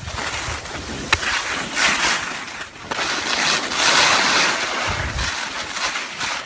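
Skis hissing and scraping over the snow of a piste, swelling twice as the turns bite, with wind rumbling on the microphone. A sharp click about a second in.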